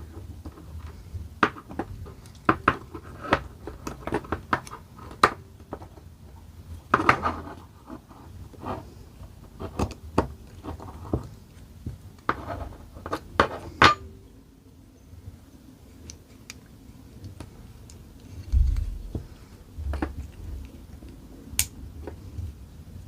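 Irregular metallic clicks and taps of small steel parts being handled as a cross pin is slid through an AK magazine catch past a pin punch, thicker in the first half and sparser later. A dull low bump comes about three quarters through.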